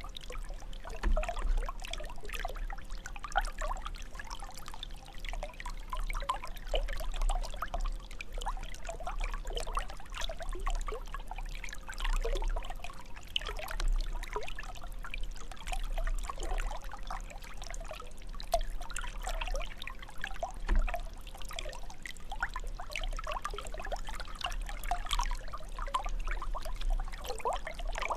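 Fountain water jet splashing and trickling continuously into the water, an irregular patter of small splashes, with a steady low rumble underneath.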